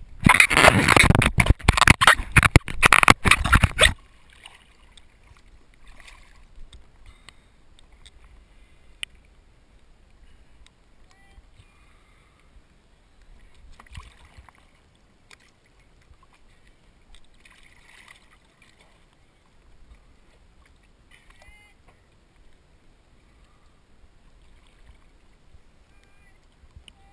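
Loud splashing and crackling of water against a waterproof action-camera housing at the sea surface for about four seconds. Then calm sea water lapping quietly, with small scattered splashes and faint voices in the distance.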